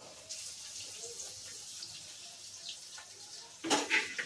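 Chopped onions sizzling in hot oil in a frying pan on a gas stove, a steady hiss. A spoon knocks against the pan a few times near the end.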